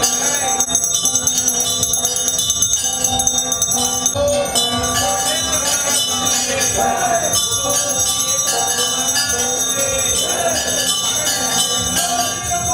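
Temple bells ringing continuously during aarti worship, a steady metallic jangle over a crowd of voices.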